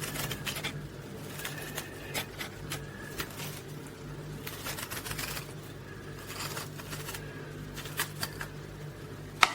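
A small hand tool scraping and gouging the flesh out of a raw turnip: irregular short scrapes and clicks, with a low steady hum underneath and a sharper knock near the end.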